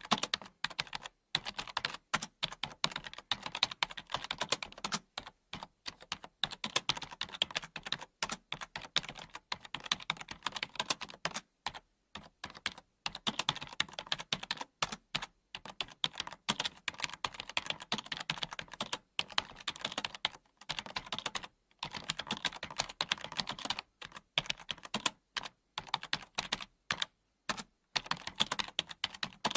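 Computer keyboard typing: rapid, continuous keystrokes with brief pauses every few seconds.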